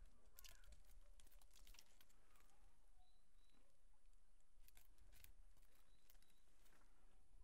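Faint, irregular scratching and ticking of a cat's claws gripping birch bark as it climbs down the trunk, with a few faint high bird chirps.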